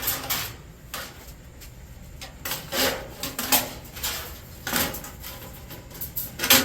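Pieces of scrap metal being handled and pulled apart by hand: irregular clanks, scrapes and rattles, with a few louder knocks.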